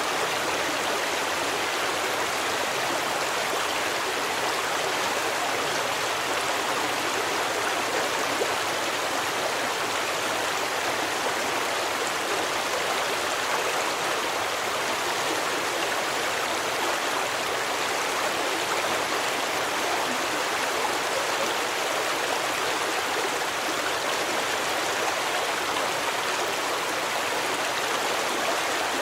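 A stream of water running over rocks, a steady rushing and babbling that holds at an even level.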